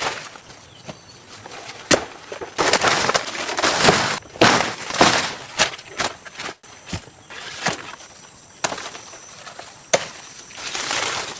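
Rustling and crunching through leaf litter and undergrowth in irregular bursts, with a few sharp snaps, over a steady high-pitched insect drone that is fainter in the first half and comes back strongly about five seconds in.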